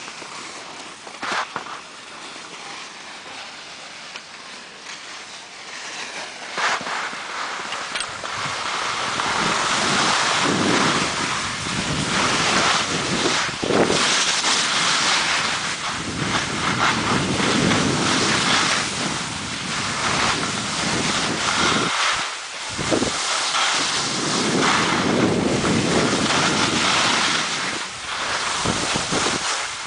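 Rushing noise of skiing downhill with the camera: wind on the microphone and skis hissing over the snow, getting louder about eight seconds in as the pace picks up.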